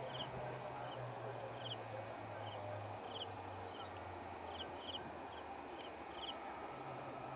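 Faint outdoor ambience: a distant electric multiple-unit (EMU) local train gives a low steady hum as it pulls away, while a bird repeats short high chirps about once or twice a second.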